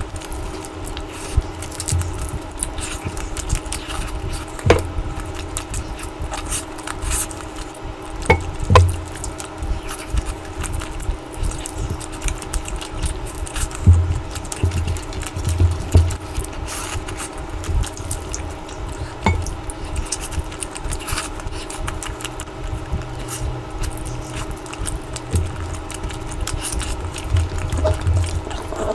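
Close-miked eating sounds: irregular wet chewing, lip smacks and clicks as curry and rice are eaten, over a steady low background hum.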